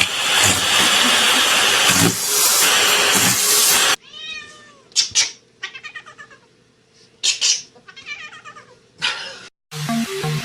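A loud, even rushing noise for about four seconds, then a cat meowing several times in drawn-out, arching calls broken by a few sharp loud noises. Music begins just before the end.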